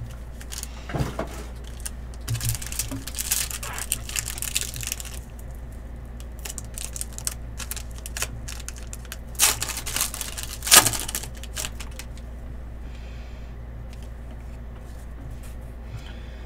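Foil wrapper of a trading-card pack being torn open and crinkled by hand, in clusters of crackles with a few sharp snaps in the middle, then quieter handling of the cards. A steady low hum runs underneath.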